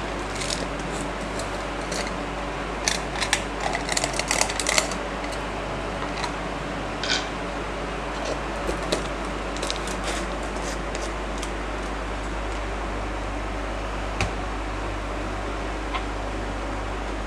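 Almonds frying in hot ghee in a nonstick frying pan, giving short crackling pops and clicks that come thickest about three to five seconds in and then thin out, over the steady hum of an induction cooktop's cooling fan.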